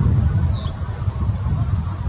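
Low, uneven rumble of wind buffeting the microphone, with small birds giving short, high chirps over it.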